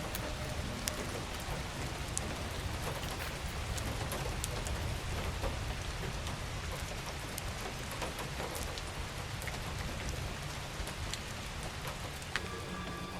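Steady rain falling, with scattered sharper drop hits on a surface.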